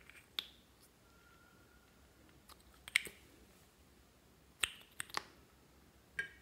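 Sharp plastic clicks and taps from handling a small makeup bottle and its cap, scattered a few at a time with quiet between.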